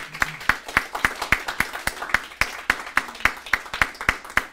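A small group of people clapping, the claps sharp and separate at about four a second.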